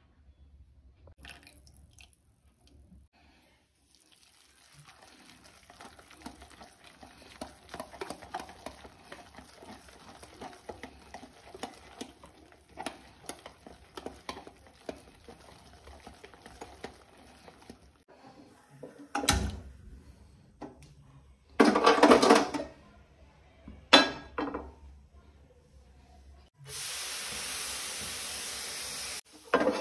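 Kitchen utensils at work: a spoon clinking and scraping in a bowl for several seconds, then a few louder knocks and clatters. Near the end comes a steady rushing noise lasting a couple of seconds that starts and stops abruptly.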